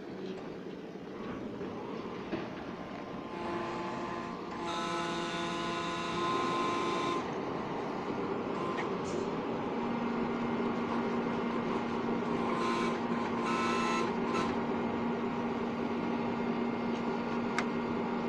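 Hydraulic rock-drill rig running as its drill mast is swung upright and set in position before drilling. Whining tones come and go between about 3 and 7 seconds in, and a steady hum sets in about 10 seconds in.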